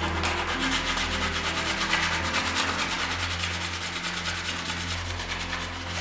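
Sanding sponge rubbed back and forth over the painted shell of a Seven iDP full-face helmet, scuffing the finish ahead of repainting: a continuous scratchy rasp of hand strokes.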